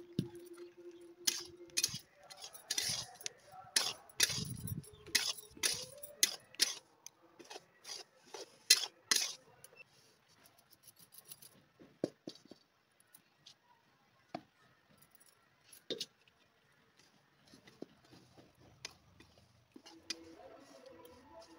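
Metal cooking pots being handled: a kadai and a steel pot clank and clink against each other and the stove in quick irregular knocks over the first ten seconds, with one duller thump. After that come only occasional soft taps.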